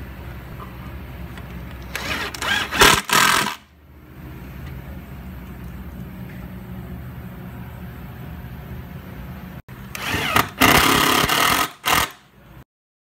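Cordless drill/driver driving screws through steel mounting brackets, in two short runs of a second or two each, the motor surging in a few quick pulses each time. A steady low hum sits underneath.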